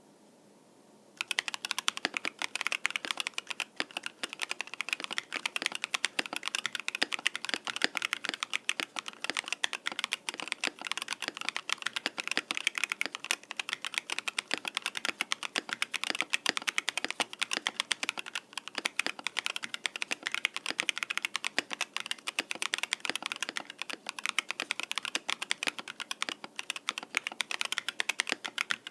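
Continuous fast typing on a mechanical keyboard with stock Durock Lupine switches, PBT keycaps and an aluminum plate in a foam-filled case. The dense clacking of keystrokes starts about a second in.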